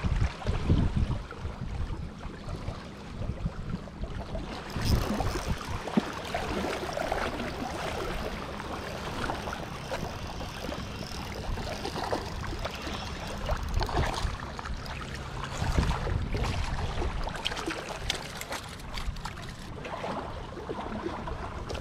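Estuary water lapping and trickling at the shore, with low rumbling gusts of wind on the microphone now and then.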